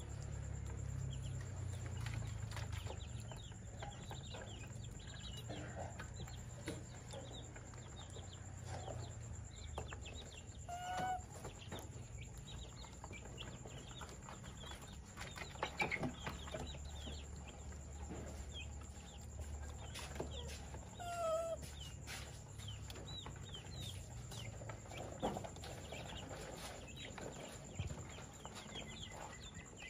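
Birds calling, scattered short clucks and chirps with a few rising squeaks. Under them are faint clicks and smacks as a baby monkey eats soft mash from a plastic bowl, and a low hum that is strongest in the first half.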